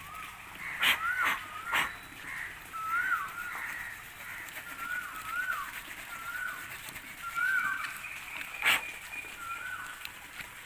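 A bird calling over and over, a short call that rises then falls, often in pairs. There are a few sharp scraping clicks from the small wood saw of a Victorinox Huntsman knife working through a thick, hard branch.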